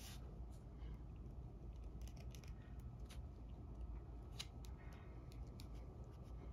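Faint scattered clicks and scratches of a fine steel awl piercing the leather holdfast of a shoe insole as holes are punched in it, thickest in the middle.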